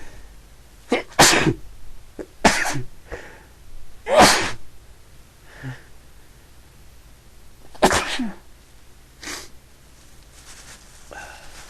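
A person sneezing over and over in a sneezing fit: four loud, explosive sneezes a second or more apart, then a fainter one near the end.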